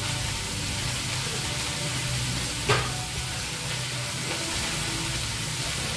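Chopped vegetables frying in mustard oil in a steel kadhai: a steady sizzle, with one sharp tap about halfway through.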